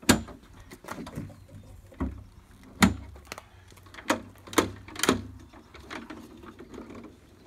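Tubular metal folding legs on a cart lid being swung out and snapped into place: a series of sharp clanks and knocks, about six loud ones, with scraping and handling noise between.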